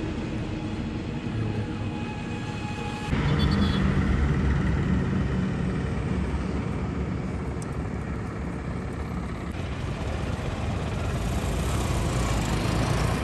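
Outdoor roadside noise of wind on the microphone and road traffic, a steady rumble that changes abruptly about 3 and 9.5 seconds in where short clips are cut together.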